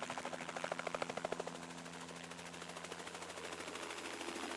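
Helicopter rotor chop, a fast, even beating that fades about a second and a half in, over a steady engine hum.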